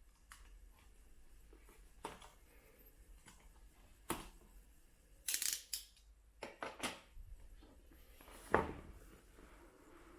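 A smartphone retail box being opened and its contents handled: a handful of short scrapes, taps and rustles of cardboard and packaging, the loudest one about eight and a half seconds in.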